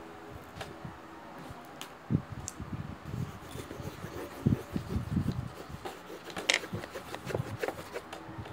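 Irregular light knocks and taps of pencils and a ruler being handled on a wooden tabletop, with one sharper click about two thirds of the way in.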